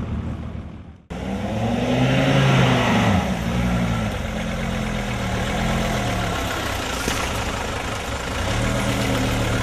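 Off-road 4x4 vehicle's engine revving up and down several times in quick succession, then running steadier before picking up again near the end. Music fades out just before the engine cuts in, about a second in.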